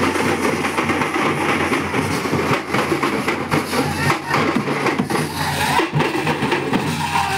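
Loud din of a large crowd with drumming and frequent sharp cracks and hits throughout.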